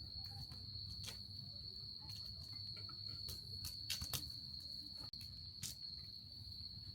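Insects trilling at a campsite: one steady, unbroken high-pitched trill, with a few faint clicks over it.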